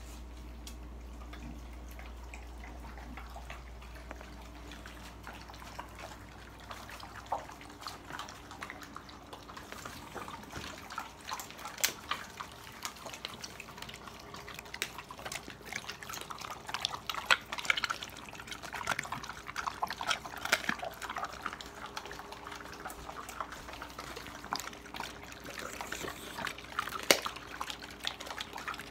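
Dogs eating raw meat from stainless steel bowls: wet licking, smacking and chewing with sharp clicks, sparse at first and busier from about ten seconds in.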